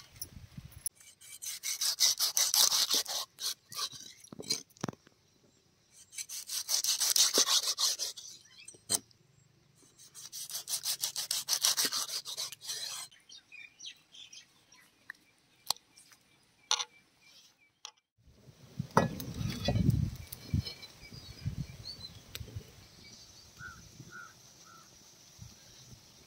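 A knife scraping over a soorai (small tuna) fish's skin on a wooden block, in three long runs of quick rasping strokes. Softer clicks follow as hands work the fish in wet spice paste, then a few low thuds.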